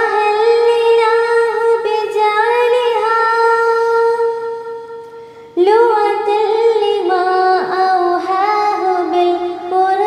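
A female voice singing a line of an Arabic poem in a slow, drawn-out melody, holding long notes. The voice fades away about four to five seconds in, then comes back strongly with the next line.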